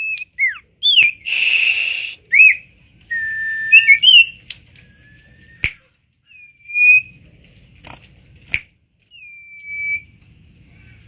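Common iora (cipoh) singing: a string of clear whistled notes, some gliding up or down and some held steady, with a short harsh rasp about a second in and a few sharp clicks between the phrases.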